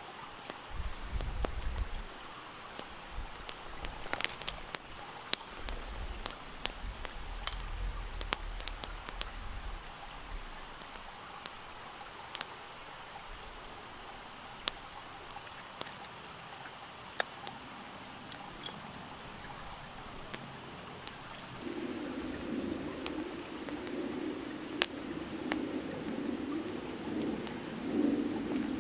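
Irregular sharp crackles and ticks, typical of a wood campfire burning, over a soft outdoor background. A low wavering sound joins about three-quarters of the way in and keeps on.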